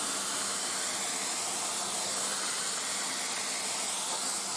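Steady, even hiss of a DIY CNC router at work, its spindle running while it mills a pocket in an aluminium motor mount plate.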